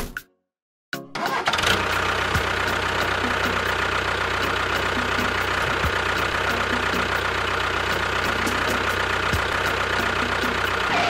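Tractor engine sound starting about a second in and then running steadily, cutting off at the end.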